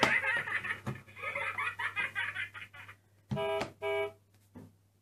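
Fisher-Price Little People toy car's electronic sound unit, set off by pressing the car, playing a short tune, then two horn beeps about three and a half seconds in.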